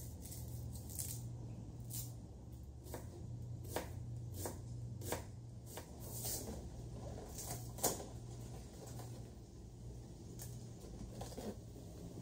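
Quiet kitchen food-preparation sounds: scattered light clicks and papery rustles from hands handling food and packaging, the sharpest a little before 8 s, over a low steady hum.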